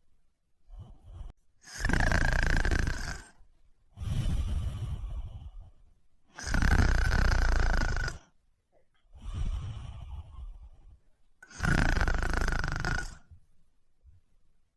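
A sleeper snoring in a slow, even rhythm: three loud snores about five seconds apart, with softer breaths between them.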